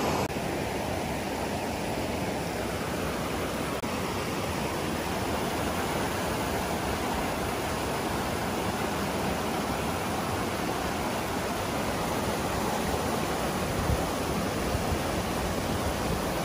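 Steady rush of a mountain river pouring over a small rocky cascade.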